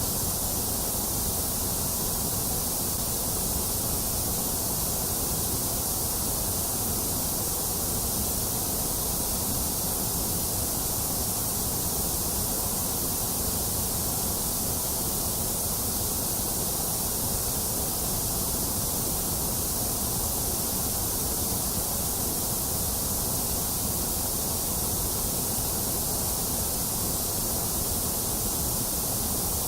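Steady, unchanging white noise: a constant hiss that is brightest in the high end, with no breaks or changes in level.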